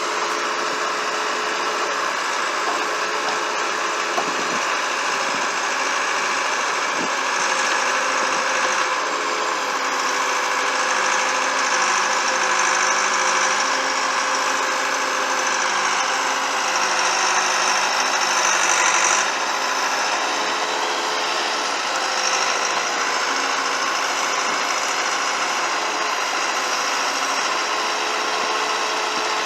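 Allis-Chalmers 715C backhoe's engine running steadily, its sound building somewhat about a quarter of the way in and dropping back suddenly about two-thirds of the way through.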